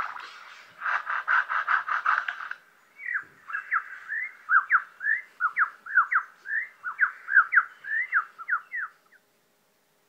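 Vocal impression of a lyrebird's mimicry: a rasping, pulsing chainsaw-like buzz for about two seconds, then a rapid string of short whistled notes swooping up and down, which stops shortly before the end.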